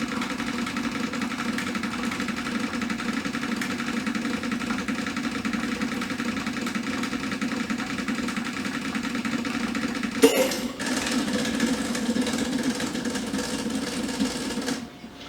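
Electric coffee equipment (espresso machine pump or grinder motor) running with a steady buzzing hum, a sharp knock about ten seconds in, then cutting off shortly before the end.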